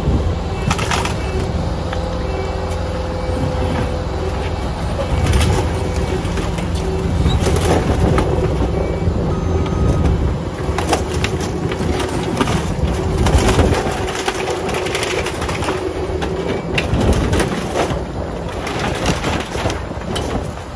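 Skid steer engine running steadily under load while it breaks up a mobile home, with repeated cracking and crunching of wood, metal and debris. The engine hum eases about halfway through as the crunching gets busier.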